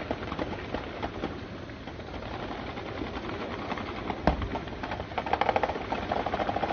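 Distant gunfire in an exchange between automatic weapons: scattered shots, one loud report about four seconds in, then a rapid burst of automatic fire near the end, over a steady low rumble.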